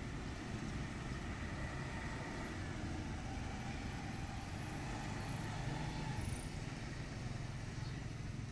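Light road traffic: motor scooters passing with a steady low rumble.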